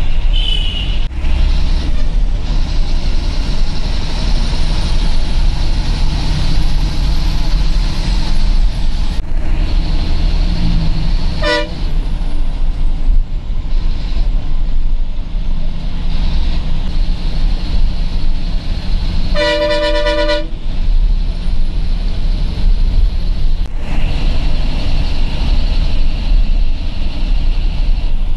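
Diesel bus engine and road noise heard from inside the moving bus, steady throughout. A short horn toot sounds about halfway through, and a louder horn blast of about a second comes about twenty seconds in.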